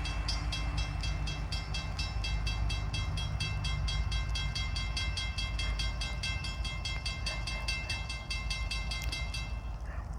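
Railroad grade-crossing bell ringing rapidly, about four or five strikes a second, over the low rumble of a train; the bell stops shortly before the end.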